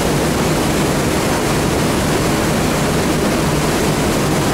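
Steady rushing of the underground Kotlovka river's water inside its collector tunnel, an even loud noise with no breaks.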